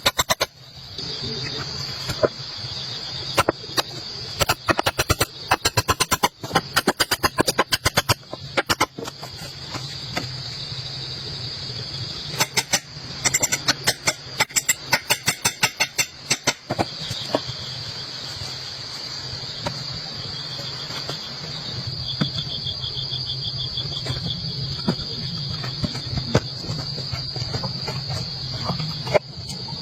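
Night insects, such as crickets, trilling steadily at a high pitch over a low steady drone. Bursts of sharp, rapid clicks come and go, thickest in the first half and again about halfway through.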